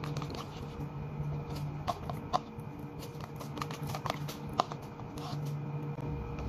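Plastic spoon clicking and scraping against a disposable bowl while the last of the food is scraped out and eaten, with a sharp click a little before five seconds in. A steady low hum runs underneath.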